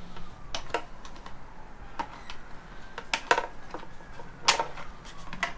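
Irregular sharp clicks and light knocks from hand work on a motorcycle's plastic fairing pieces and screws, the loudest about four and a half seconds in.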